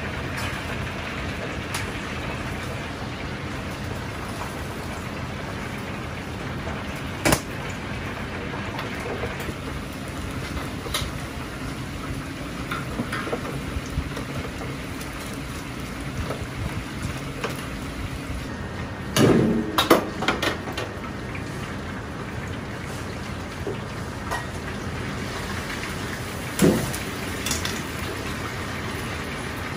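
Batter-coated chicken deep-frying in hot oil, a steady crackling hiss. Sharp metal clanks of kitchen utensils cut through it: one about seven seconds in, a cluster around twenty seconds, and another near the end.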